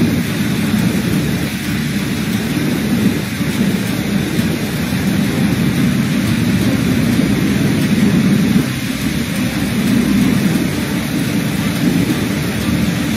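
Steady rushing noise of a heavy rainstorm and floodwater surging across a flooded street.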